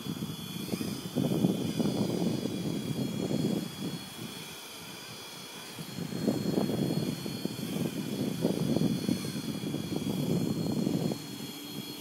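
Blade SR electric RC helicopter hovering, its rotor and motor giving a steady high whine. Gusty wind buffets the microphone in two long rumbling gusts, the first in the opening few seconds and the second from about six seconds to near the end, louder than the helicopter.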